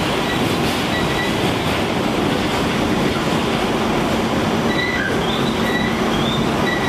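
R46 subway car running along the track, heard from inside the car: a steady rolling rumble of steel wheels on rail under a low hum. Short, high-pitched wheel squeals come and go, more often in the second half.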